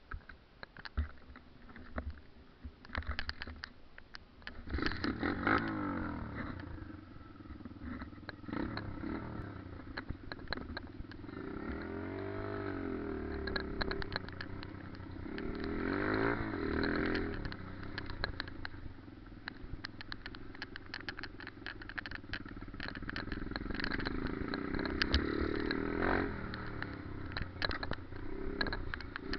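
Pit bike engine heard close up as it is ridden, its pitch rising and falling again and again with the throttle, mixed with rattling and clattering from the bike over rough ground. It is quieter for the first few seconds and gets louder about five seconds in.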